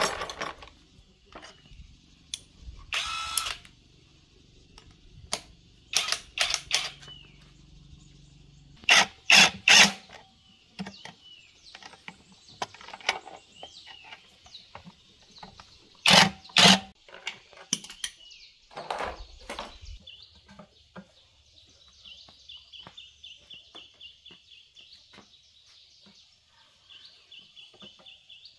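Metal hand tools clinking and clanking against a small diesel engine while its open crankcase is probed and worked on. The knocks are scattered, with loud clusters about nine and about sixteen seconds in. Birds chirp steadily behind, more busily in the last few seconds.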